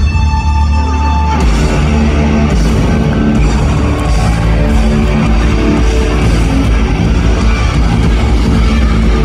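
Live rock band with distorted electric guitar and drum kit playing loud. A single held guitar note rings for about the first second and a half, then the full band comes in together with drums and bass.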